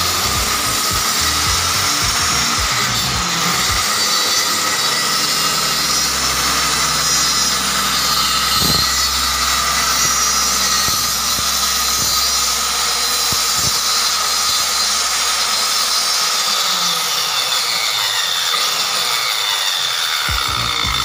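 A compact electric wood trimmer (small router) runs at high speed with a steady, loud whine while it routes a groove along a plywood cabinet panel's edge. There are a few brief knocks partway through, and the pitch sags toward the end.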